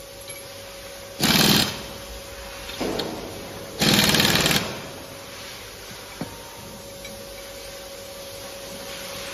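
Handheld impact driver running down bolts on a spring hydrant's cast valve body: two bursts of fast rattling, the first about half a second and the second nearly a second long, with a short weaker burst between them.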